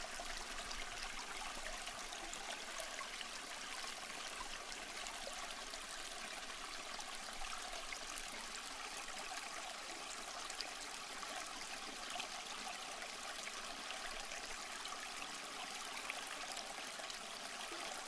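Water trickling and splashing steadily from a small terracotta pot waterfall, spilling from pot to saucer in thin streams.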